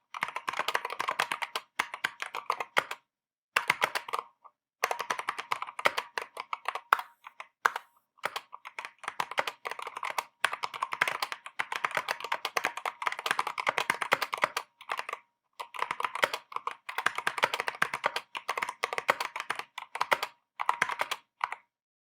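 Drop CTRL High Profile mechanical keyboard with stock, unmodded Halo Clear tactile switches and stabilizers being typed on: quick runs of keystrokes in bursts, broken by a few short pauses.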